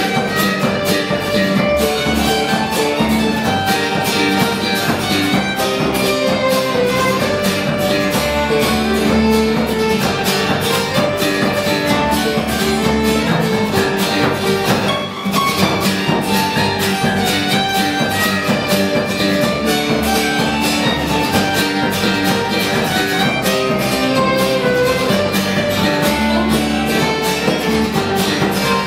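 Live Ukrainian folk band playing an instrumental march: violin carrying the tune over strummed acoustic guitar, mandolin and bass guitar, with a frame drum keeping a steady beat. The sound drops out for a moment about halfway through.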